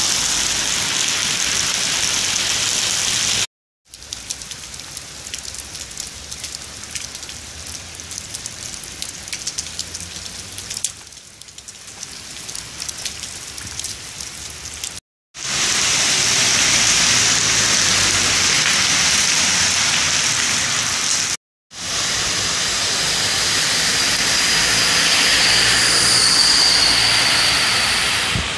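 Heavy rain falling on wet pavement and running water, a steady hiss broken by three short gaps of silence. In the quieter middle stretch, separate drops can be heard pattering.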